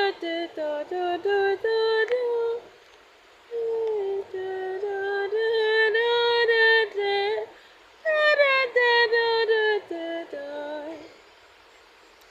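A high voice singing a wordless melody in short phrases of stepped notes, with brief pauses between phrases.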